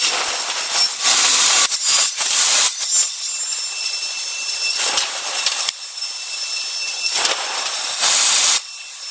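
A power saw cutting wood, its motor giving a steady high whine under the noise of the cut. Louder cutting passes come about a second in, around two and a half seconds in, and near the end.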